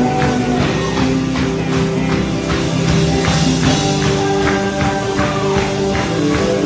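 Live church worship band playing an upbeat song, with held keyboard and guitar notes over a steady percussion beat.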